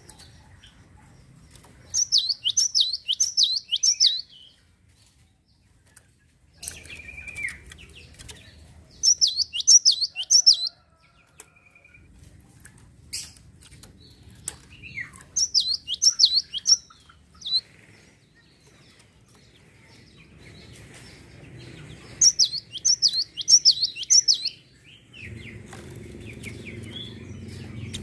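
Java sparrow (gelatik) singing: four bursts of about two seconds each of rapid, sharp, down-slurred high notes, with scattered softer chips between. A low rumbling background noise builds near the end.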